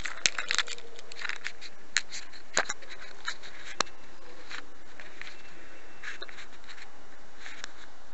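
808 keychain spy camera's tiny built-in microphone picking up handling noise: a scatter of sharp clicks and scrapes over the first four seconds or so, fewer after that, over the mic's own steady hiss.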